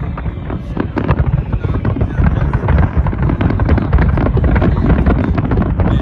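Aerial fireworks display: a dense, unbroken barrage of shells bursting and crackling, the bangs overlapping over a heavy low rumble and growing thicker after about two seconds.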